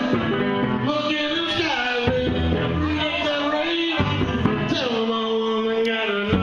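Music with a singing voice: held, gliding sung notes over a steady accompaniment.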